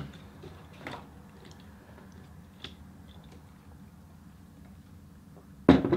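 Quiet sipping of root beer floats through straws, with a few faint clicks and one short, sudden loud sound near the end.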